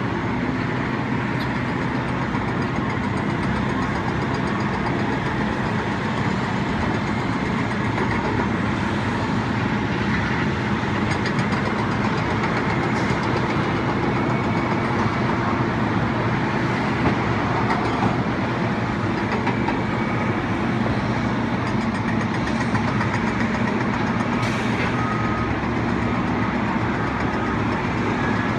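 Steady running noise of a vehicle, an even rumble with no distinct events.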